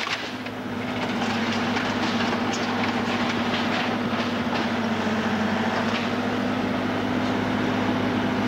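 A heavy machine's engine running steadily under load, with scattered cracks and snaps of debris, as the burned cabin is torn down.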